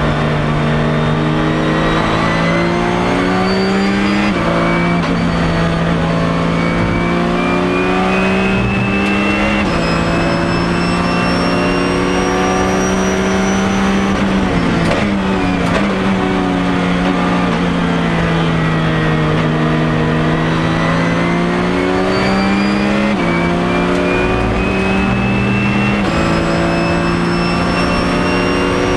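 Porsche 997 GT3 Cup race car's naturally aspirated flat-six engine, heard from inside the cabin, pulling hard up through the gears with quick upshifts about 4 and 10 seconds in. Around 15 seconds in it drops pitch under braking with short downshift blips, then accelerates again through two more upshifts near the end.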